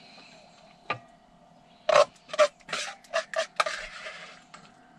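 A serving spoon scraping and clinking against a metal saucepan as food is dished out into bowls: one knock about a second in, then a quick run of clinks and scrapes through the middle.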